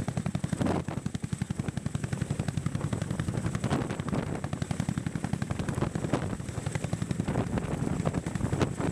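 Boeing CH-47 Chinook tandem-rotor helicopter hovering low, its two rotors beating in a rapid, even chop with a steady high whine over it.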